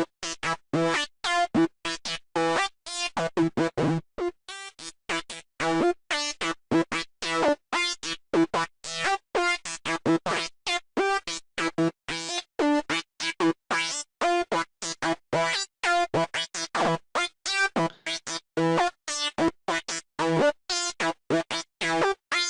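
Sylenth1 software synthesizer playing a psytrance night full-on lead: a fast run of short, clipped notes, several a second. Each note's pitch is modulated by LFO2, whose depth is driven by an envelope.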